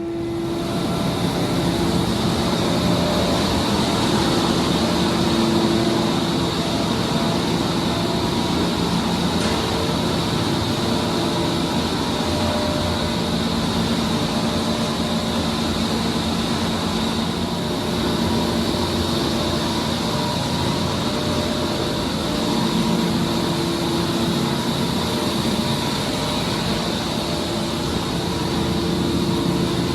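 Commercial HVAC equipment running: a steady, even drone of fan and air noise with faint hums that come and go.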